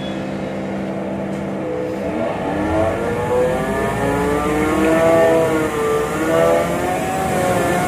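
City bus engine heard from inside the passenger cabin: a steady drone at first, then from about two seconds in rising and falling in pitch as the bus accelerates along the road.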